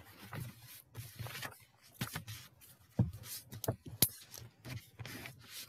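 Faint, irregular rustling and a few sharp clicks of small handling noises picked up through video-call microphones.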